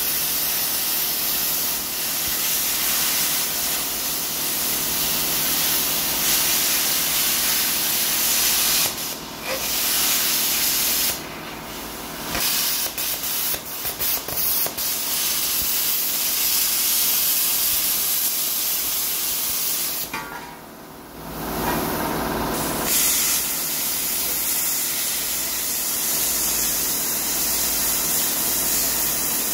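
Plasma cutter hissing steadily as it cuts through the rusty steel of a truck frame. The cut stops and restarts several times, with one pause of about two seconds about two thirds of the way through.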